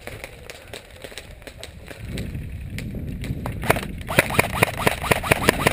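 M4-style airsoft electric gun firing a quick string of semi-automatic shots, about four or five a second, starting a little over halfway in, each shot a sharp crack with a short whir of the gearbox.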